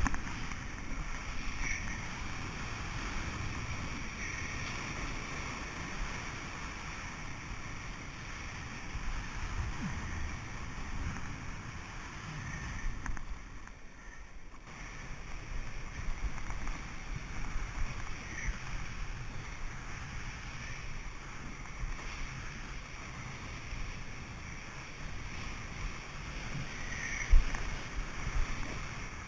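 Water sloshing and splashing along a stand-up paddleboard's hull as it moves through the sea, with wind buffeting the microphone. About two seconds before the end a sharp splash stands out as the board rides into breaking whitewater.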